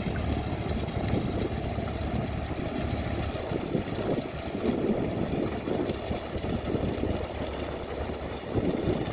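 Boat engine running steadily: a low, continuous rumble heard from the water as a wooden fishing boat moves past.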